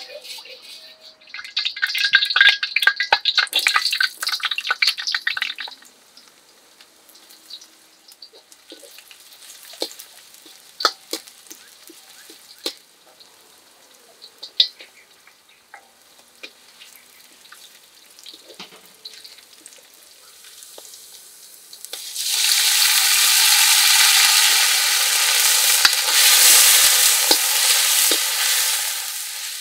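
Chopped shallots and chillies sizzling and crackling in hot oil in a steel wok, stirred with a metal ladle that scrapes and taps the wok. A short crackling burst comes near the start. A few light clicks and scrapes follow, then a louder, steadier sizzle about three quarters of the way through as more food goes in, easing off near the end.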